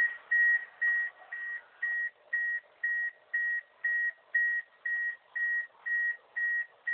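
Electronic beeper sounding a steady high-pitched beep that repeats evenly, about two beeps a second.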